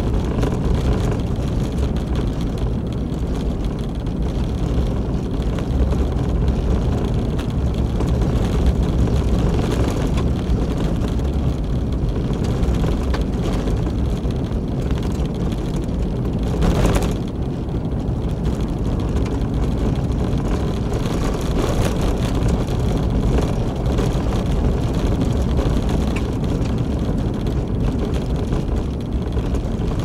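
Steady low rumble of a vehicle driving, with engine and road noise heard from inside the cab. About seventeen seconds in there is one brief, louder rush of noise.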